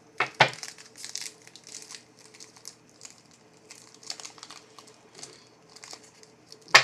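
Foil trading-card pack wrapper crinkling as it is handled and torn open, with two loud sharp crackles just after the start, small scattered crackles after that, and another sharp crackle at the end.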